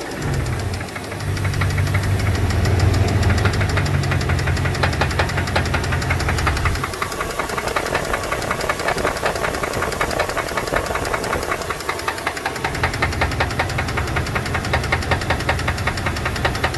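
2002 Dodge Dakota's 4.7-litre V8 idling with a fast, steady ticking knock that the owner suspects is a lifter problem or piston slap. The low engine hum fades for a few seconds in the middle and returns.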